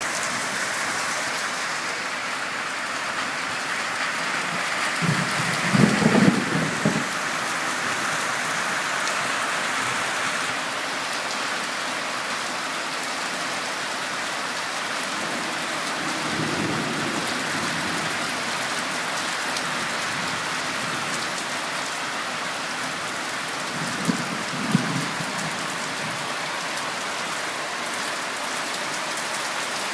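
Steady rain falling, with thunder rumbling three times. The first and loudest rumble comes about five seconds in, a fainter one near the middle, and another with a couple of sharp cracks near the end.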